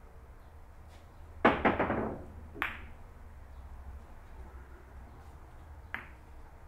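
Boccette billiard balls thrown by hand across the table and colliding: a quick run of hard clacks about a second and a half in, a sharper single clack a second later, and one more click near the end.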